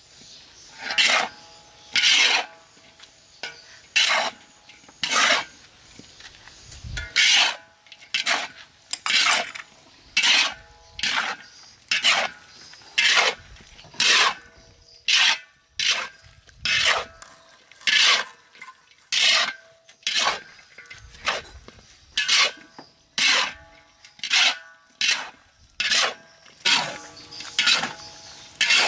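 A long-handled metal spatula scraping against a large metal wok as cabbage and egg are stir-fried, in loud, regular strokes about once a second.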